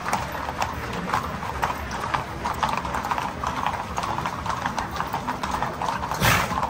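Hooves of many Camargue horses clip-clopping in an uneven patter as the horses walk along a paved street. Near the end a short, louder rush of noise stands out above the hoofbeats.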